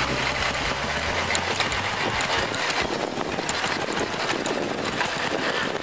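Motorcycle engine running while riding, under steady wind and road noise on the microphone.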